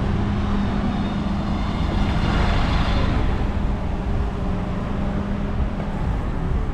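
Street traffic: motor vehicle engines running close by, with the sound swelling as a vehicle passes about two seconds in.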